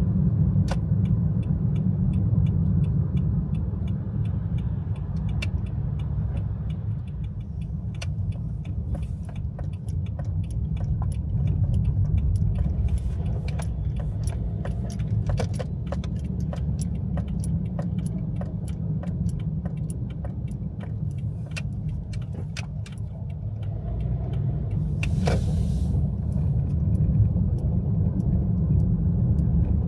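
A car driving, with a steady low road rumble and many small sharp ticks scattered irregularly over it. A short hiss rises and falls about 25 seconds in.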